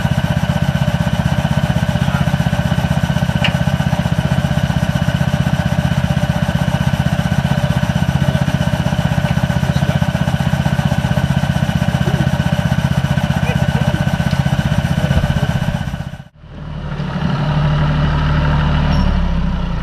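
An engine running steadily with a rapid even pulse, cutting off suddenly about sixteen seconds in. A different, lower engine sound follows as a green John Deere loader tractor drives up.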